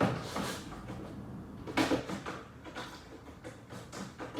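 Handling noise as a MacBook charger is plugged in: several short knocks and clicks at irregular intervals, the loudest a little under two seconds in.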